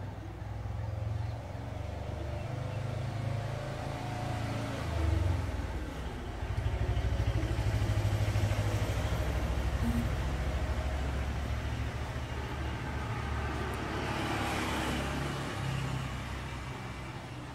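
A motor vehicle's engine running: a low rumble that grows louder about a third of the way in and holds, with a brief rush of noise near the end.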